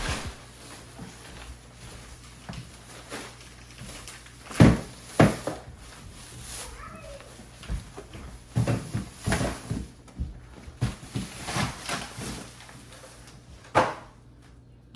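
Scattered knocks and thumps of objects being handled and set down, at irregular intervals, the loudest about four and a half seconds in and another near the end.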